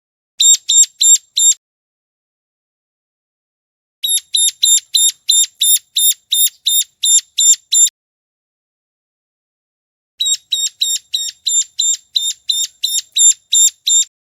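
Ciblek gunung calling: three bouts of rapid, sharp, high chip notes, about four a second. The first bout is short, about five notes, and the next two last several seconds each, with silence between the bouts.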